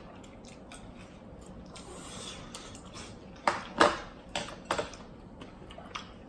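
Tableware sounds while eating: faint clicks of metal chopsticks, then, about three and a half seconds in, a quick cluster of four or five sharper knocks and clatters as chopsticks and a plastic plate are handled and set down on the table.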